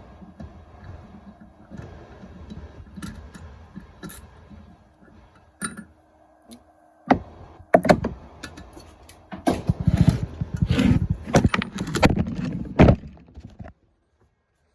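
Hand tools working metal on an engine's cylinder head while a broken exhaust manifold bolt is extracted: irregular metallic clanks, knocks and rattles. They are faint at first, grow loud and busy in the second half, and cut off abruptly near the end.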